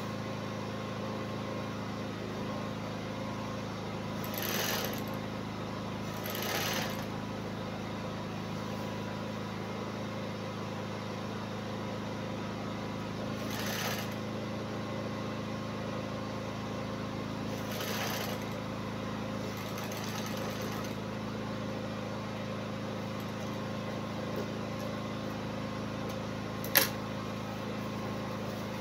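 Industrial sewing machine at work: a steady hum throughout, broken by about five brief rushes of noise and one sharp click near the end.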